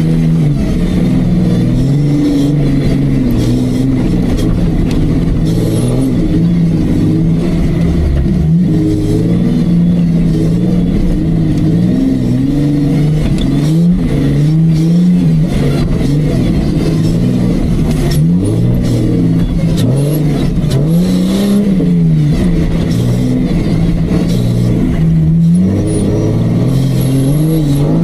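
Off-road Jeep engine working hard under load, revving up and down without a break as the throttle is worked; the pitch swings repeatedly with one longer rise and fall about three-quarters of the way through.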